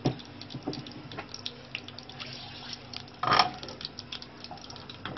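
Cooking oil heating in a pan, giving small scattered crackles and pops, with one brief louder burst about three seconds in.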